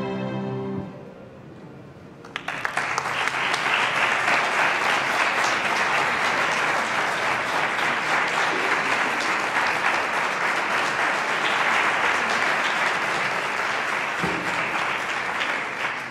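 An orchestra's last held chord dies away, and about two seconds later the audience breaks into steady applause that carries on to the end.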